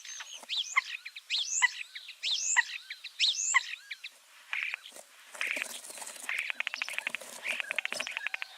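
Spring woodland birds singing: a short whistled phrase of rising and falling notes repeated about once a second, then from about halfway through a fast, even trill of rapid pulses.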